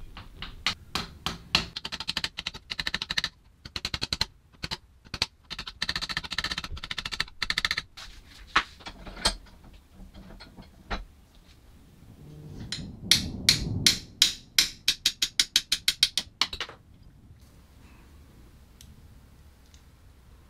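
Sharp taps in quick bursts of several strikes a second, like a small hammer knocking on a part clamped in a bench vise. Just before the last and loudest burst there is a short low rumble.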